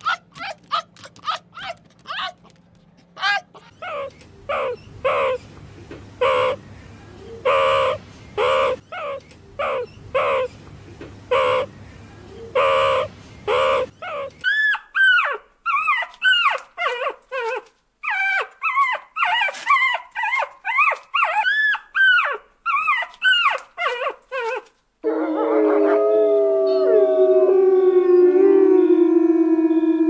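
Canine calls in three runs: sharp yapping barks about one a second, then a dog's high, arching yelps and whines, then from about 25 seconds in a pack of wolves howling together, several long voices overlapping.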